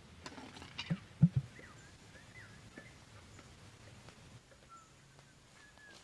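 Scrabbling in loose dirt, then three dull thumps in quick succession about a second in, as the propped ball and its sticks drop over the pit. Small wild birds chirp faintly throughout.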